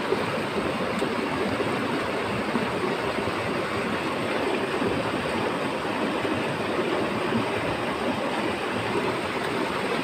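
Steady rush of water flowing fast over and around rocks close by.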